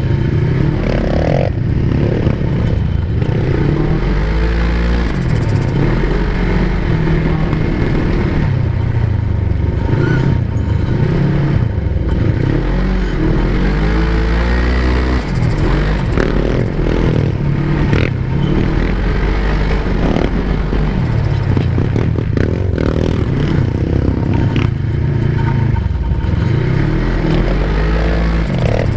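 Quad bike engine revving up and falling back again and again while riding over sand dunes, heard from on board, with some clattering.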